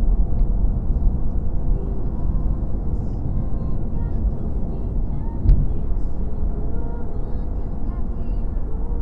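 Steady low road and engine rumble of a car cruising on a highway, heard inside the cabin, with faint music underneath. A single sharp knock about halfway through.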